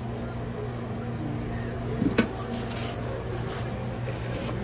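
Steady low mechanical hum, with two quick light knocks about two seconds in.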